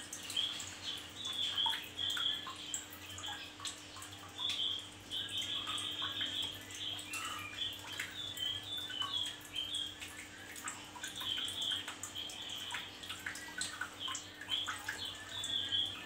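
Male Javan grey-throated white-eye (opior jawa) singing in a cage: repeated bursts of short, high chirps and twitters, with a few light clicks between them.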